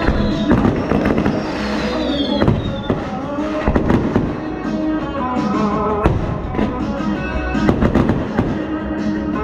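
Fireworks going off: repeated bangs and crackle from bursting shells and ground fountains, over the music of a pyro-musical show.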